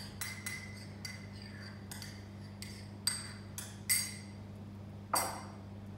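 A metal teaspoon clinks against a small cup as the made-up instant coffee is scraped out into the mixing bowl. There are several sharp clinks with a brief ring, the loudest near the end, over a faint steady hum.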